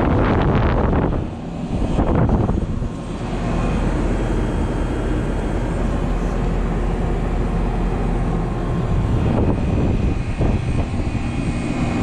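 Trane heat pump outdoor unit running in heating mode: a steady hum from the compressor under the rush of the condenser fan. Rougher buffeting noise in the first couple of seconds, while the microphone is held at the fan grille.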